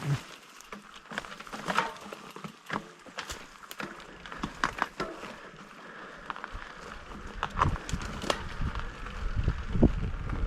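Scattered crackles and clicks of an e-bike and rider moving over twigs and leaf litter on a dirt trail, with a low rumble building in the last few seconds.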